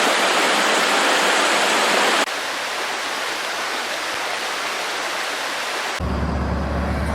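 Rushing floodwater: a dense, even roar that cuts abruptly to a quieter rush about two seconds in. Near the end a low steady hum comes in under it.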